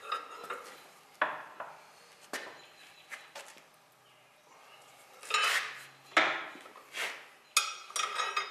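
Steel wrenches clinking and clanking against the steel wheel rim and eccentric of an Allis-Chalmers tractor wheel while its bolts are tightened: a string of irregular sharp metallic knocks, a second or so apart, bunching up near the end.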